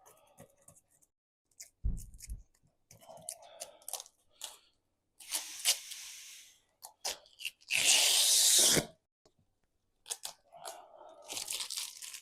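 Rustling, crinkling and crackling as a large vinyl decal and its backing paper are handled and peeled, with scattered small clicks. There are three hissing stretches: one about five seconds in, a louder one lasting about a second around eight seconds in, and another near the end.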